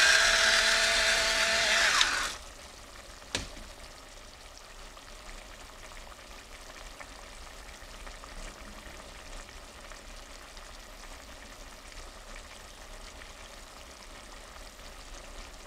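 Electric pepper grinder whirring steadily for about two seconds, then cutting off; it is nearly empty, so little pepper comes out. A single click a second later, then tomato sauce simmering faintly in the pot.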